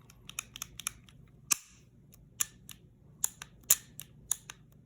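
Metal parts of a Sig P220 pistol clicking and snapping as it is handled and worked: a dozen or so sharp clicks at uneven intervals, the loudest about a second and a half in and near the end.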